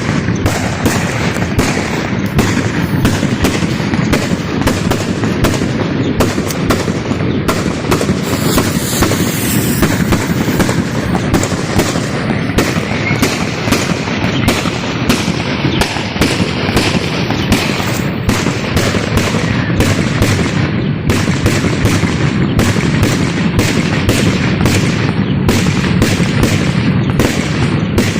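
String of firecrackers going off in a continuous rapid crackle of sharp bangs, many a second without a break.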